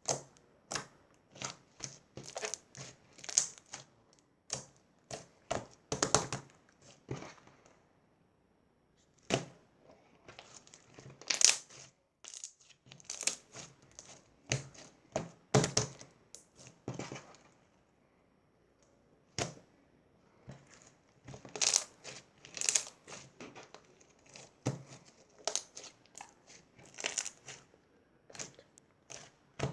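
Crinkling and rustling of something being handled, in irregular bursts of short crackles with brief pauses between them.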